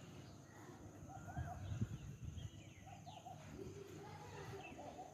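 Birds calling faintly: short runs of wavering notes repeat every second or two, with a few higher gliding whistles between them. There is a brief low bump just before two seconds in.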